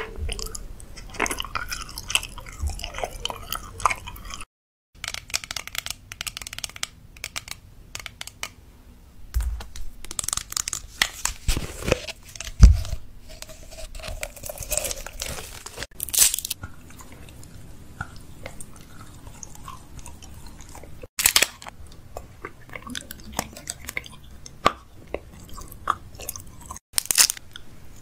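Close-miked chewing and crunching of crisp food in the mouth, with many short sharp crackles, broken by sudden cuts between clips.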